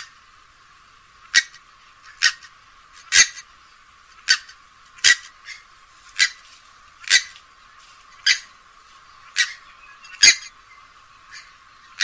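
Grey-headed swamphen giving short, sharp call notes, about one a second, some louder than others.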